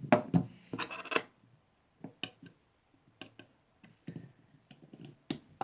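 Small metal and polymer pistol parts being handled while a grip panel is taken off a Norinco NP34 pistol: a run of louder knocks and scrapes in the first second or so, then scattered sharp clicks.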